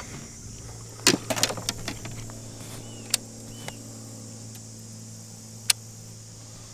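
Faint, steady low hum of a bass boat's electric trolling motor, broken by a few sharp clicks and knocks on the boat. Two short high chirps come about three seconds in.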